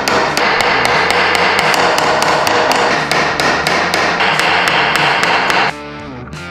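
Rapid hammer blows, about four a second, on a ZF6 transmission case, beating the stuck back case to separate it from the main case. Near the end the hammering cuts off and rock music with guitar and drums takes over.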